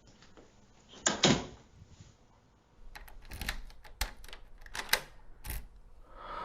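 A door shutting with two heavy knocks, followed a couple of seconds later by a run of sharp, irregular clicks and knocks.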